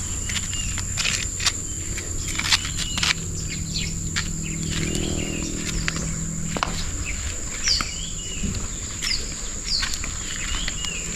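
Birds chirping again and again over a steady high-pitched insect drone, with the filmer's footsteps on dirt and gravel.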